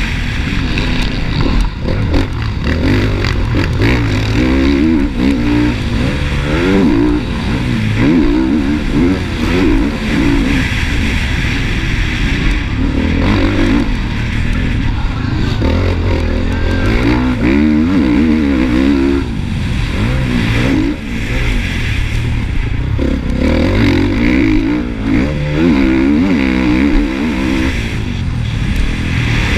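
Honda motocross bike's engine revving hard and dropping back over and over, its pitch climbing through each burst of throttle and falling on shifts and corners.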